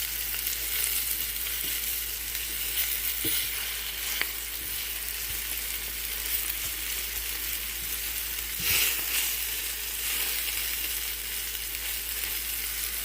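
Flour-coated salmon bites frying in olive oil in a pan, a steady sizzle that swells briefly louder about nine seconds in.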